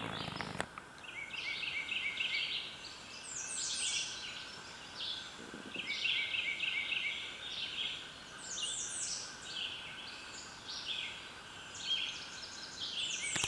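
Songbirds singing in the woodland canopy: high chirping song phrases, each a run of down-slurred notes and quick trills, repeated every two to three seconds. A brief rustle at the very start stops less than a second in.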